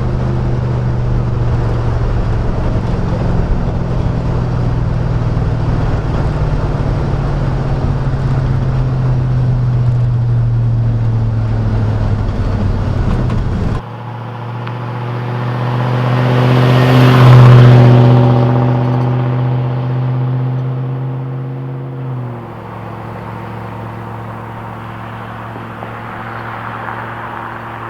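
A 1999 Chevrolet Silverado's 5.3L V8 droning through a Cherry Bomb muffler, heard inside the cab at a steady low pitch. About halfway through, the sound changes abruptly to a quieter, cleaner engine drone. A rush of noise then swells and fades over a few seconds, and the level steps down once more near the end.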